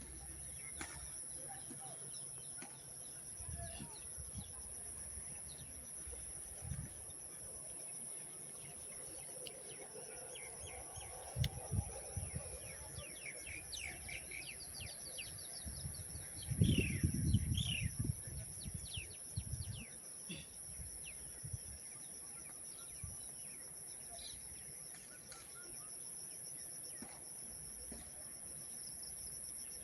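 Outdoor ambience of birds and insects: a steady high insect buzz throughout, with scattered short falling bird chirps in the middle stretch. There is a brief low rumble about two-thirds of the way in, the loudest sound.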